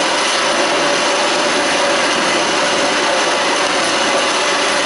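Steady, loud rushing noise of water polo players splashing in a pool, heard as drill footage played back over a hall's sound system.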